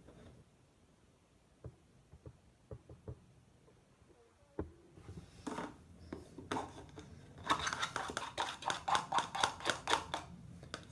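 Plastic knife stirring soap and shampoo in a plastic yogurt container, mixing slime. It starts with a few light clicks, then picks up about halfway in into fast scraping strokes, around six a second, that get louder toward the end.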